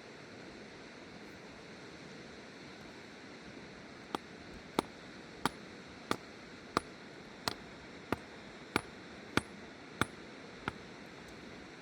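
About eleven sharp metallic taps, evenly spaced about two-thirds of a second apart, starting about four seconds in, each with a short high ring. They sound over the steady rush of a river.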